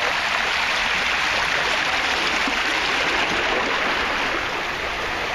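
Fast shallow river water rushing and churning over stones in a canoe pass, heard from a canoe riding down it: a steady rush of white water.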